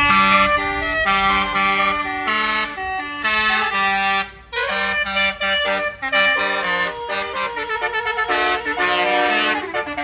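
Bus basuri horn, a multi-tone telolet horn, playing a tune: a fast run of short horn notes at changing pitches, starting abruptly, with two brief breaks midway.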